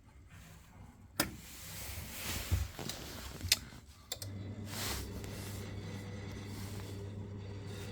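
Two sharp clicks, then about four seconds in the Ferroli Modena 80E boiler's fan starts and runs with a steady hum as the boiler tries to fire after a reset.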